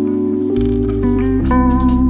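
Background music: a guitar-led song with a moving bass line, no singing in this stretch.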